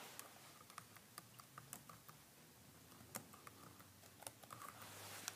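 Laptop keyboard being typed on: faint, uneven key clicks with a short pause in the middle.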